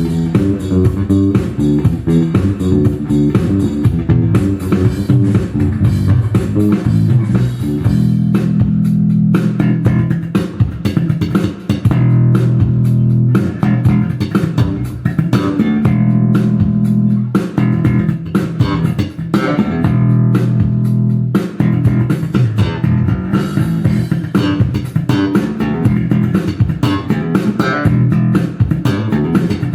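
Tobias Growler four-string electric bass played solo: a stream of quick, percussive notes with sharp attacks, broken by a few longer held notes in the middle.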